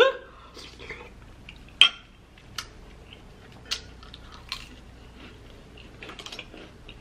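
Close-miked eating: a metal spoon clicking against glass bowls, four sharp clinks with the loudest about two seconds in, and soft chewing between them.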